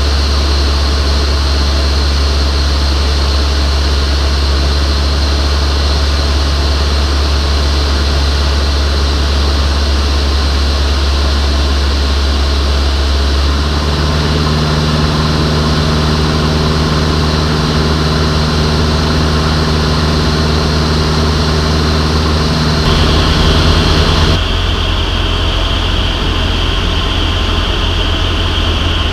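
Van's RV-6A light aircraft's piston engine and propeller droning steadily, heard from inside the cockpit in flight. The drone shifts abruptly in tone about halfway through and again near the end.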